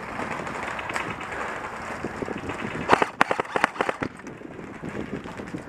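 Airsoft rifle firing a quick run of about seven sharp shots within a second, a little past the middle, over a steady rustle of movement outdoors.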